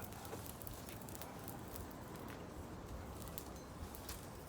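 Faint crackling and popping of a bonfire of burning branches, scattered sharp ticks over a low steady background noise.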